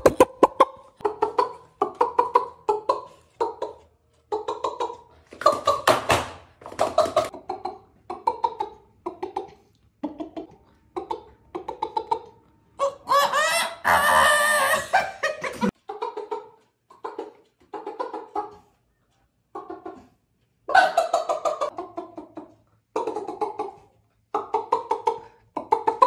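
A man imitating a chicken with his voice: a long run of short clucks, broken about halfway through by one longer, louder call of nearly three seconds.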